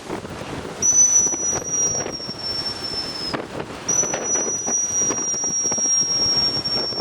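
Strong wind buffeting the microphone, with two long, high-pitched whines over it, the first lasting about two and a half seconds and the second starting about a second later and holding on, each sagging slightly in pitch.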